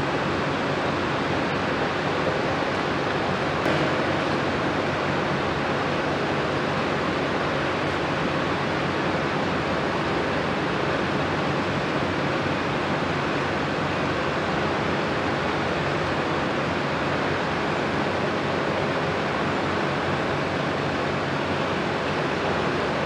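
Steady, even din of heavy construction machinery running, a dense rumble and hiss with no distinct knocks or clanks.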